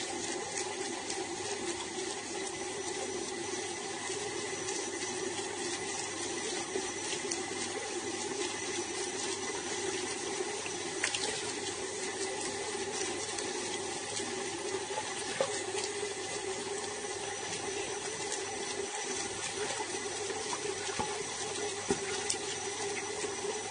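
Water running steadily from a tap in a thin stream into a sink basin.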